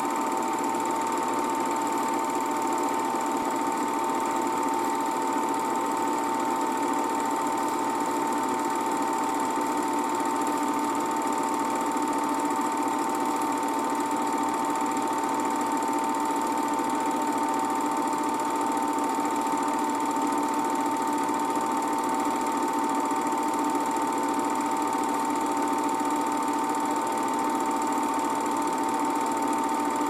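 8mm film projector running steadily, with a constant mechanical hum and a steady high tone. The print is silent, so no cartoon soundtrack is heard.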